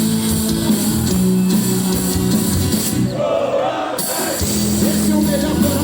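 A band playing rock-style music with guitar and drums. About three seconds in the treble drops out for roughly a second, then returns.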